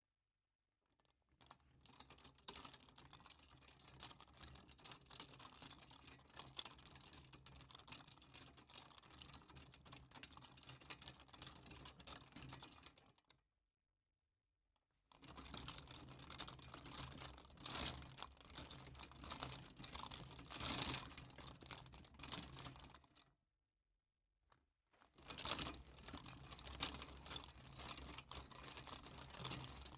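Rolling utility cart: its wheels and frame rattle and clatter continuously as it is pushed, in three runs with two short pauses, about 13 s and 23 s in.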